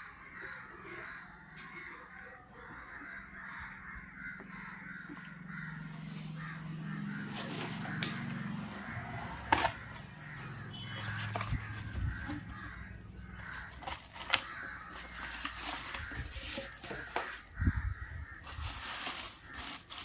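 Sharp clicks and light knocks from hands handling car speaker crossover wiring and parts, loudest about 9.5 and 14 seconds in. Behind them runs a steady chatter of birds calling.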